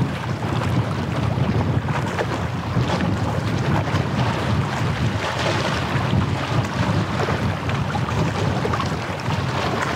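Wind buffeting the microphone in a steady low rush, over the sound of sea water lapping at the shore.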